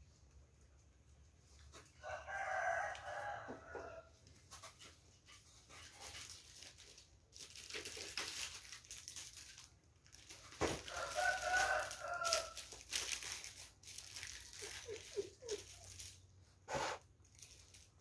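A rooster crows twice, each crow one long call of about two seconds: the first about two seconds in, the second about halfway through. Bouts of rustling and shuffling noise come in between and after the crows.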